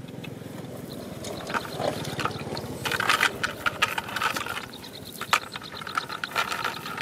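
Live fish splashing and slapping in a plastic bucket of water as they are dropped in from a wet cast net. Short wet slaps and splashes come in a busy run around the middle.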